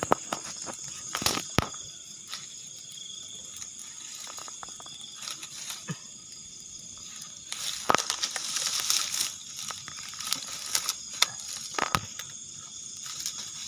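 Hands handling dry twigs and leaves while building up a small campfire: irregular snaps, crumpling and rustling, loudest in a stretch of rustling about eight seconds in.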